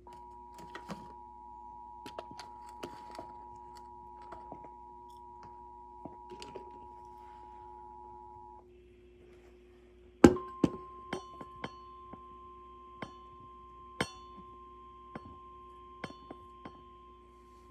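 Emergency Alert System attention signal: a steady two-tone alarm for about eight and a half seconds. After a gap and a loud thunk, a single steady warning tone follows, like the 1050 Hz weather-radio alarm, with scattered clicks and knocks throughout.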